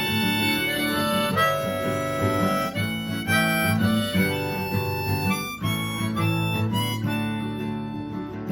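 Harmonica playing a melody of held notes over strummed acoustic guitar: an instrumental break between verses of a folk song.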